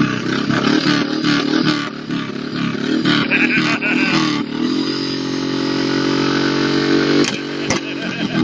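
Motorcycle engine revving unevenly, then settling into a steady run about halfway through. Two sharp knocks near the end.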